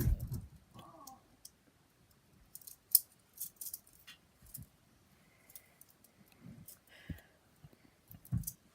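Handcuffs being unlocked and opened with a key: scattered small metallic clicks and rattles, several in a quick run about three seconds in and a few more near the end.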